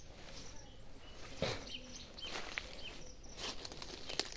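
Footsteps rustling through long grass and brushing foliage, with short bird chirps in the background.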